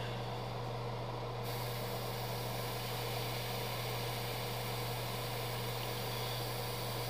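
Airbrush hissing steadily as it sprays at low pressure, about 10 PSI, starting about a second and a half in, over a steady low motor hum.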